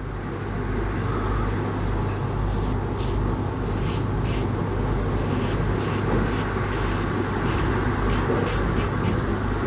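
Tap water running steadily into a sink, switched on suddenly at the start, with short splashes and drips breaking through it, as from rinsing.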